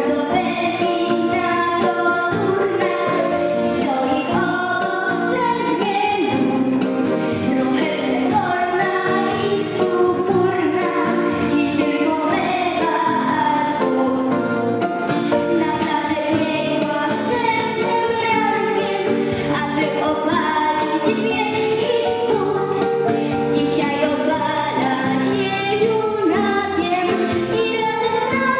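A class of young children singing a Polish patriotic song together, with instrumental accompaniment keeping a steady beat.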